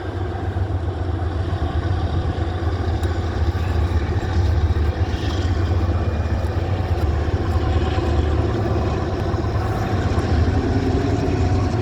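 Low, steady rumble of a passing train, growing gradually louder.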